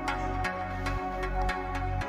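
Electronic background music with a steady beat and a bass line that changes note about every half second.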